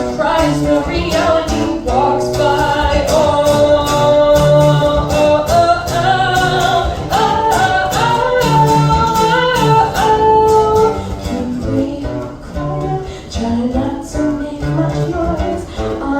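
A vocalist singing long, sliding held notes over a strummed guitar, a song performed live.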